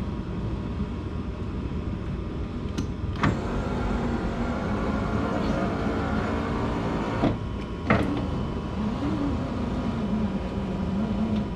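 Power window motor in an FC3S Mazda RX-7 door running the glass. It starts with a click about three seconds in and runs for about four seconds, then stops. After another click it runs again, over a steady background hum.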